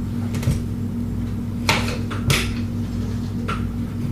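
A kitchen knife slicing squash on a cutting board: four sharp knocks at uneven intervals, over a steady low hum.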